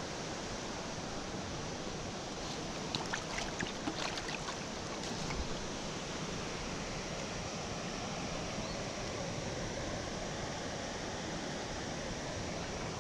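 Steady rush of water, with a few light clicks and taps about three to five seconds in.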